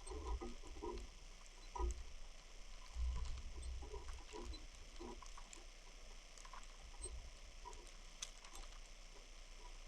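Snowstorm, quiet: light irregular pattering and ticking of precipitation, with low gusts of wind on the microphone, strongest about two and three seconds in.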